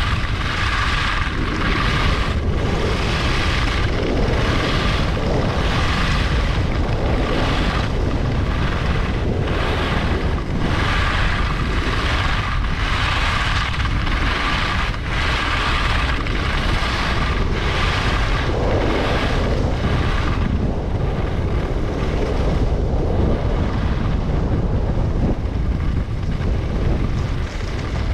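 Skis carving on firm groomed snow, the edges scraping in a rhythmic hiss that swells and fades about once a second with each turn, over steady wind rumble on the microphone. About two-thirds of the way through the edge scraping fades, leaving mostly the wind.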